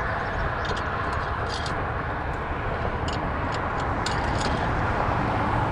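Steady roadside traffic noise from vehicles passing on the highway, with a few light clicks and clinks scattered throughout.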